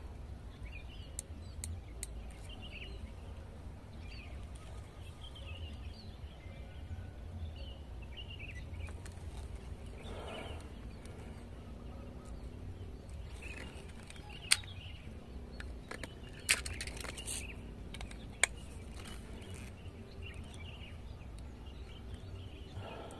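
Outdoor ambience: small birds chirping here and there over a steady low wind rumble on the microphone. Three sharp clicks come in the second half, about two seconds apart.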